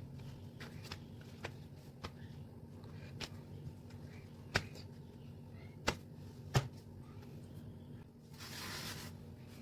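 Kitchen handling sounds during food preparation: scattered soft taps and clicks, three sharper knocks in the middle, and a brief rustling hiss near the end, over a low steady hum.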